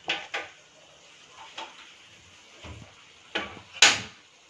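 A steel ladle scraping and knocking in an aluminium pressure-cooker pot of thick curry, a few separate clinks, then a louder clank near the end as the pot is set onto the gas stove's burner grate.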